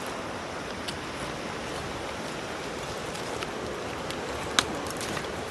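Footsteps over stony, rocky ground, with a few sharp steps standing out, over a steady rushing noise.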